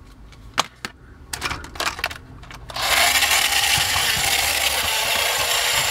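A few sharp clicks, then about three seconds in the battery-powered motor and gearbox of a 1984 Taiyo/Galoob 'The Animal' Tiger Paw toy 4x4 truck start up and run with a steady, loud mechanical whir.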